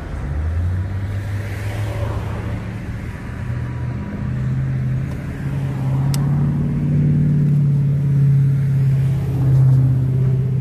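Freight train rolling across a bridge: a diesel locomotive's engine drone steps up in pitch over the first few seconds and grows louder toward the end, over the rumble of the cars.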